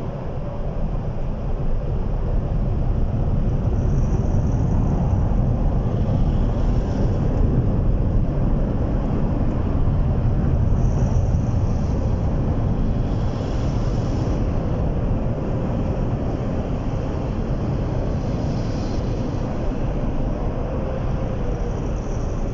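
Tunnel car wash's air dryer blowers running, a loud steady rush of air heard from inside the car's cabin, easing slightly in the second half as the car moves toward the exit.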